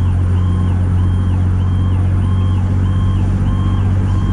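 A fire truck's siren on yelp, sweeping up and down about twice a second, over the steady drone of the 2003 Pierce Dash ladder truck's diesel engine while it drives.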